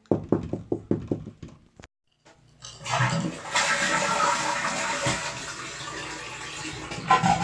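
A quick run of about nine clicks and knocks, then a toilet flushing: a loud rush of water that starts about two and a half seconds in and slowly dies down.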